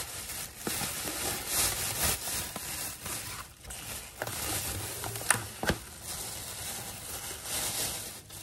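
Thin plastic grocery bag rustling and crinkling as it is pulled off food containers, with a couple of sharp plastic clicks a little past the middle.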